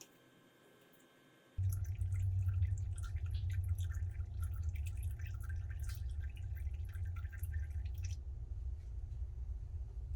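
Old engine oil draining from the oil pan into a drain pan, dripping and splattering, starting suddenly about a second and a half in over a low rumble. The splatter dies away a couple of seconds before the end while the low rumble carries on.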